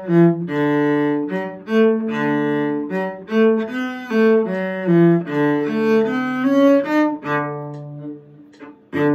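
Cello played with the bow: a quick run of short and held notes in a lively rhythm. The notes stop about seven and a half seconds in, and one more short note sounds near the end.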